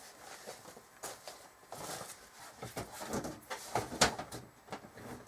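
Parts of a computer case being pushed and fitted together by hand: a run of scrapes, rubs and light knocks, with a sharp click about four seconds in, as a tight fit is forced over bunched-up cables.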